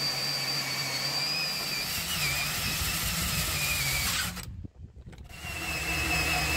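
Electric power tool motor whining steadily, its pitch wavering slightly; it cuts out briefly about two-thirds of the way in and comes back at a lower pitch.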